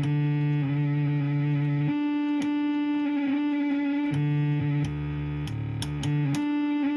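Korg MS-20 analog synthesizer sounding a steady held tone while oscillator 1's footage switch is stepped. The lower tone drops out and returns at different pitches several times, with sharp clicks at the changes.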